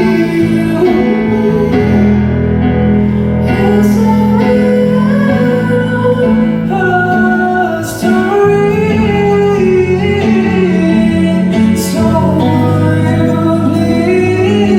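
Live band music: a slow song with guitar over steady low chords and a sung melody line of held, gliding notes.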